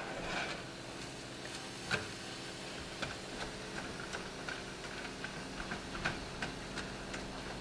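Ground turkey and hot Italian sausage cooking in a skillet: scattered light clicks and pops at an uneven pace over a faint steady hum.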